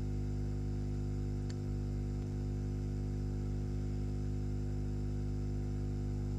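Steady electrical mains hum with a buzzy stack of overtones and a faint hiss underneath, unchanging throughout; a faint click about one and a half seconds in.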